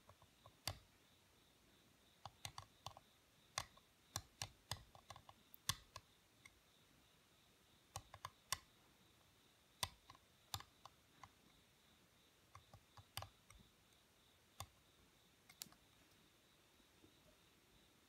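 Seal-carving knife cutting into the face of a stone seal: sharp, irregular clicks, sometimes several in quick succession, as the blade chips out the stone.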